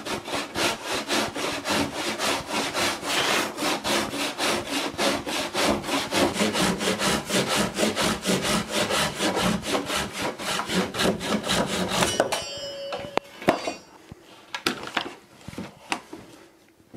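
Handsaw cutting through a wooden board along a joint in quick, even back-and-forth strokes. The sawing stops about twelve seconds in, followed by a few scattered knocks.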